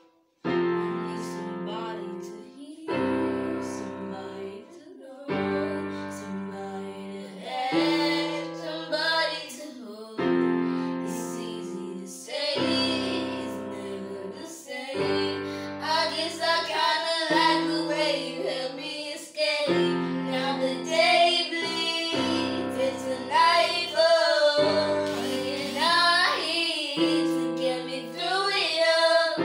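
A boy singing while accompanying himself on an electronic keyboard set to a piano sound, playing held chords that change every two seconds or so. The keyboard pauses for a moment at the start, and the singing comes in about eight seconds in and grows stronger toward the end.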